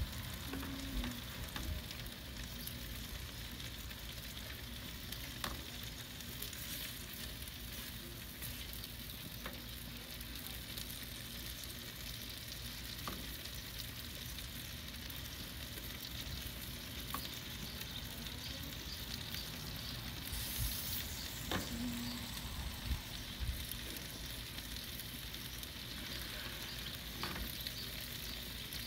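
Food sizzling on a grill, a steady hiss with a few light clicks scattered through it.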